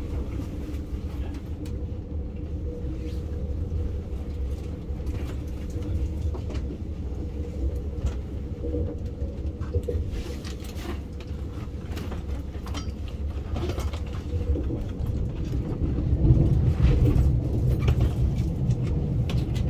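ICE high-speed train running on the track, heard from inside the carriage: a steady low rumble with a faint hum and scattered clicks and knocks. The rumble grows louder about three-quarters of the way through.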